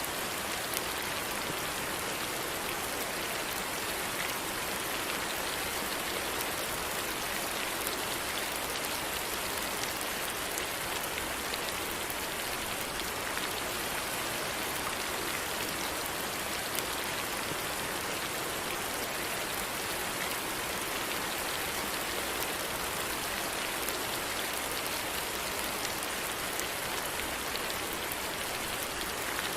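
Steady rain falling, a constant even hiss with fine scattered drop ticks.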